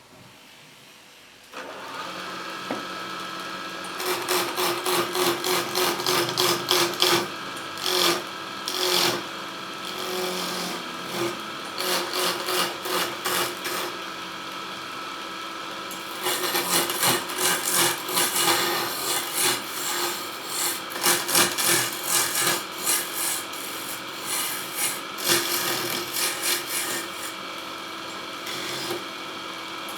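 Wood lathe motor humming steadily, starting about a second and a half in, while a turning chisel cuts the spinning wood in long, uneven scraping passes, with a short let-up about halfway.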